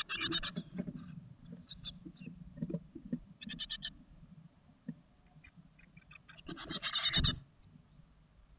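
Nearly fledged great tit nestlings in a wooden nest box giving bursts of rapid, chattering begging calls, three times, the loudest near the end, with scuffling and a thump as they shift about on the nest. The begging is the young calling for food from a parent at the entrance hole.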